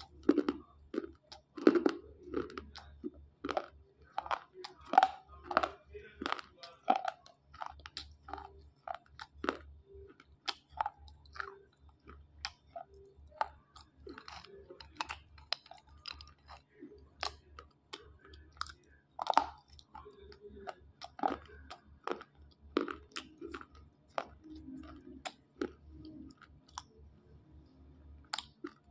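Dry slate pencils being bitten and chewed: a run of sharp, irregular crunches, a few each second.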